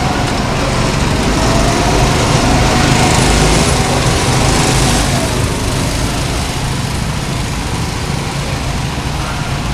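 Small go-kart engines running at speed on the track, heard from a moving kart: a steady, loud engine-and-road noise, with one engine tone wavering up and down in pitch from about a second and a half in to about five seconds in.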